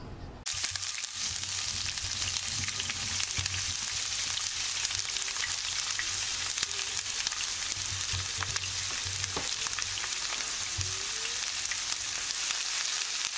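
Thinly sliced onions sizzling steadily in hot oil in a frying pan as they are dropped in by hand and stirred with a spatula, the first stage of frying them into birista (crisp browned onions). The sizzle starts suddenly about half a second in.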